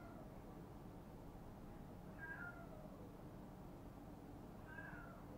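A cat meowing faintly, two short calls each falling in pitch, about two and a half seconds apart, over a low steady hum.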